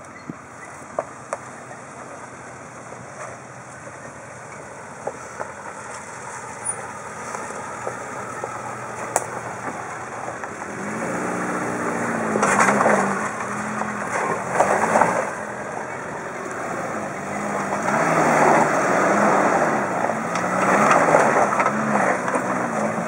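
1988 Suzuki Samurai's four-cylinder engine rock crawling. It is faint at first with a few sharp clicks, then from about eleven seconds in it comes close and revs up and down over and over as the vehicle climbs, with louder rushing surges on the hardest pulls.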